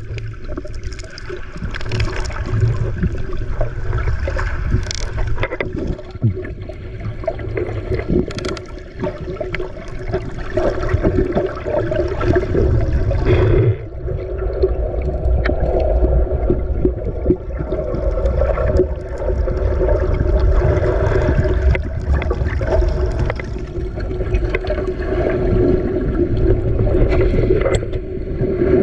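Boat motor running steadily with water rushing and splashing around the hull.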